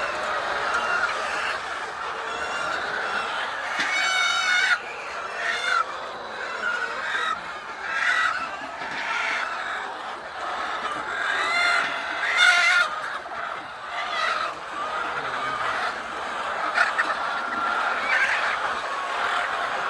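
Many hens clucking together in a steady chorus, with louder squawks about four seconds in and again about twelve seconds in.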